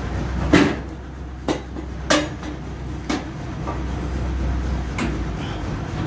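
About five sharp knocks and clanks at uneven intervals, the loudest about half a second in, as a log is shifted and set on the steel log bed of a manual band sawmill. A steady low hum runs underneath.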